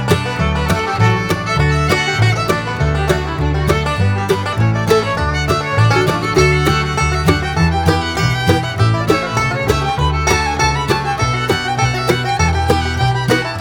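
Background music with a steady beat: an upbeat bluegrass-style tune on fiddle with plucked guitar or banjo.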